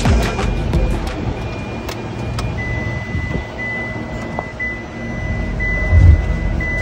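Hyundai Grand i10 with its ignition switched on: a high electronic warning chime from the dashboard repeats about once a second, starting a few seconds in, over a low steady hum.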